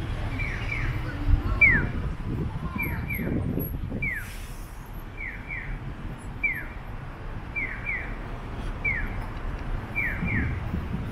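Japanese pedestrian-crossing audible signal sounding its electronic bird-chirp 'piyo' call: a single falling chirp answered by a double chirp, repeating at an even pace about every second and a quarter. It means the crossing light is green for pedestrians. Low street noise runs underneath.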